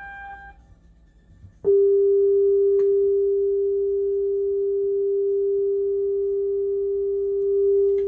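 Steady single test tone from a Marantz 2285B receiver tuned to an FM signal generator, starting abruptly about a second and a half in after a short quiet gap, with a faint click a second later. It is the generator's test signal received cleanly in FM stereo, the receiver's tuner passing its test.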